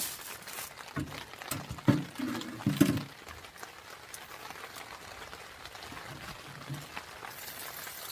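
Steady rain, with a few sharp knocks and low thumps in the first three seconds.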